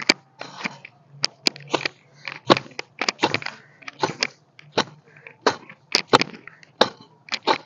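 Metal hoe (kudali) digging into stony soil: repeated sharp strikes and scrapes of the blade on earth and stones, irregular at about two to three a second.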